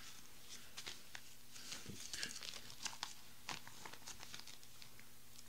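Thin Bible pages being leafed through on a lectern: faint, irregular rustles and crinkles of paper.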